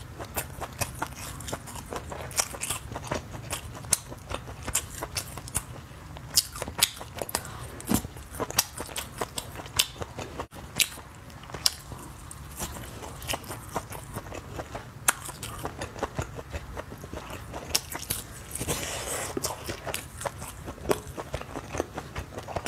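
Close-miked biting and chewing of spicy skewered sausage: irregular crunches and wet mouth clicks, several a second.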